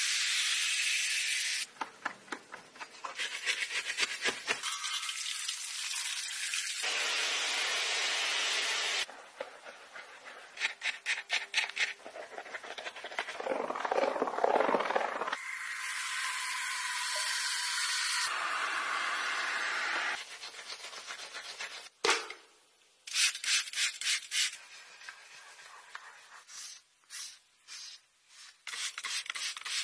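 Close-up scrubbing and wiping sounds of car detailing: hands and brushes working soap foam over a wheel and tyre, and a microfiber towel rubbing a leather seat. The sound changes every few seconds, often as runs of quick back-and-forth strokes, with one sharp knock partway through.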